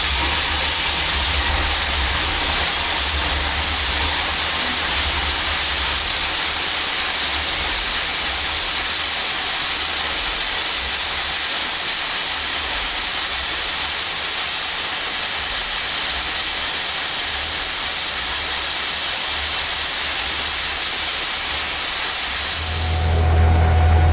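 Steam locomotive, a Baldwin 2-8-2, giving off a steady hiss of steam over a low rumble, with no exhaust beats. The rumble grows louder near the end.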